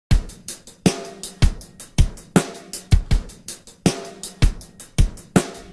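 A drum kit beat playing on its own as a song's intro: bass drum about twice a second with snare and hi-hat hits in between.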